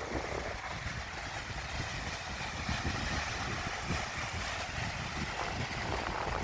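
Steady rushing noise with a low rumble: wind buffeting the microphone by the sea.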